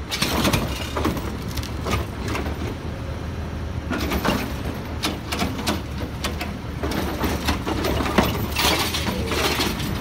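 Automated side-loader garbage truck's engine running steadily while its hydraulic arm grabs a wheeled cart, lifts it and tips it into the hopper. Bursts of clunks and clatter from the cart and its contents come about four seconds in and again near the end.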